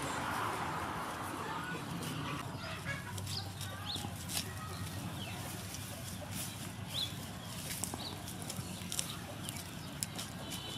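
Lemongrass leaves rustling and dry stalks crackling as a hand parts the clump, with scattered sharp clicks. Short high chirps from birds sound a few times in the background.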